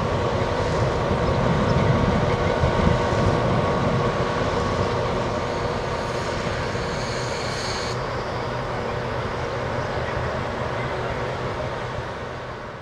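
Italian FS diesel locomotive engine running steadily during shunting, fading away near the end. A faint high squeal comes in partway through.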